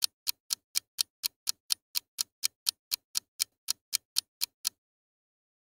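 Clock-style ticking countdown, about twenty even ticks at about four a second, stopping near the end.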